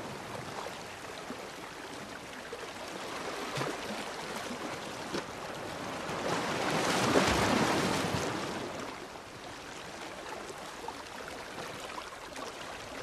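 Open sea water washing and lapping, an even rushing that swells up into one louder wave about halfway through and then falls back.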